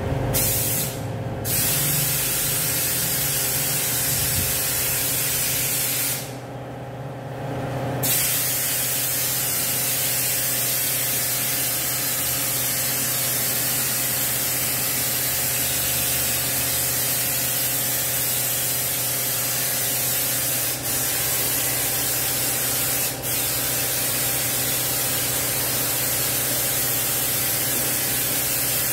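High-pressure washer jet spraying the underside of a car raised on a lift: a steady loud hiss over a low steady hum. The jet cuts out for about two seconds around a quarter of the way in, and for brief moments twice later on.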